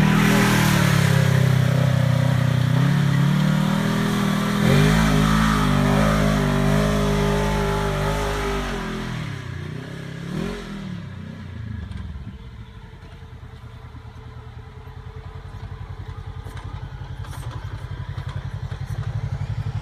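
Polaris RZR 1000 side-by-side's twin-cylinder engine revving hard under load, its pitch rising and falling with the throttle, then fading away about halfway through as it climbs off into the distance. Near the end a low, rapid engine pulse grows louder as the machine comes back down the trail.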